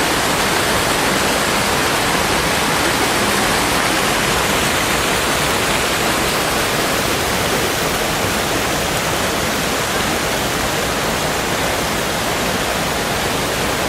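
Loud, steady rush of fast-flowing mountain water, a waterfall or cascading stream, unchanging throughout.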